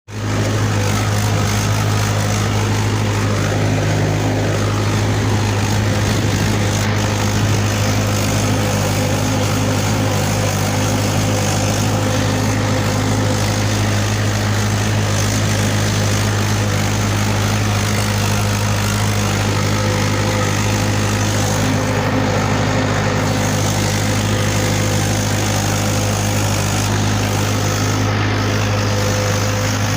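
Mahindra tractor's diesel engine running at a steady speed, with an unusual noise in it that the owner asks about and cannot explain.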